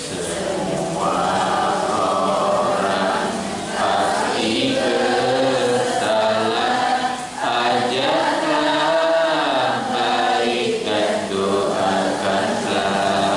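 A man singing an Islamic devotional song in Indonesian, with long held notes that bend in pitch.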